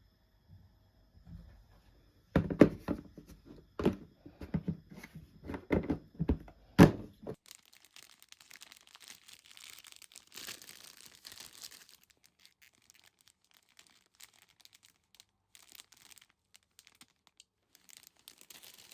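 A run of sharp knocks and thuds, several a second, as things are handled and set down. About halfway through they stop abruptly and give way to faint rustling and crinkling with scattered small clicks.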